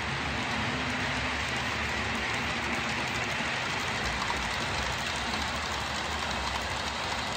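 HO-scale model train running along the layout's track: a steady rolling hiss with no distinct knocks or pauses.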